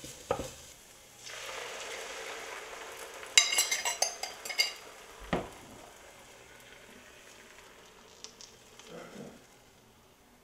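Vegetables sizzling in a nonstick frying pan on an electric stove as they are stirred, with a run of bright clinks against the pan a little past three seconds in and a single knock about two seconds later. The sizzle then dies down.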